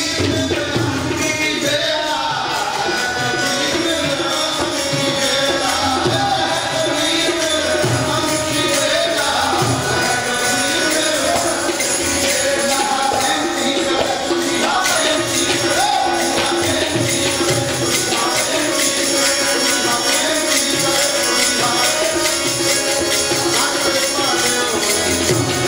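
Sikh keertan: voices singing a hymn over steadily played tabla.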